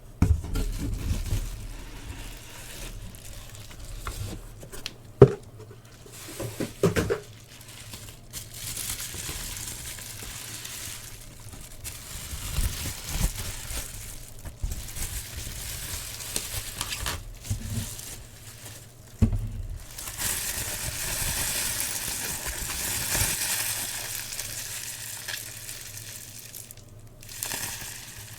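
Cardboard box and packaging being handled and opened: scattered knocks and taps, then a longer stretch of rustling and crinkling from about 20 seconds in that stops shortly before the end.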